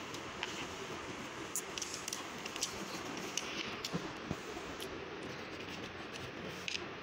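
Scattered light clicks and taps of hands handling the plastic and metal parts of an opened HP EliteBook laptop's underside, over a steady background hiss.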